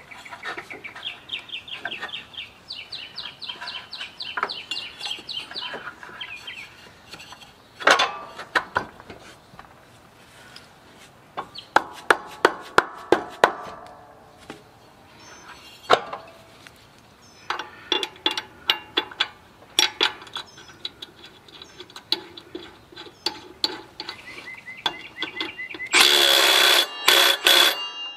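Hand tools working on metal at a riding mower engine's crankshaft pulley: runs of rapid clicking, scattered sharp clinks and knocks, then a loud rattling burst of about a second and a half near the end.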